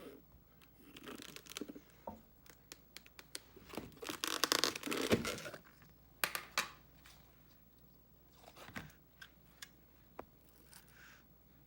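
Handmade slime squished and pulled by hand, giving scattered pops and crackles, with a longer burst of squishing about four to five and a half seconds in.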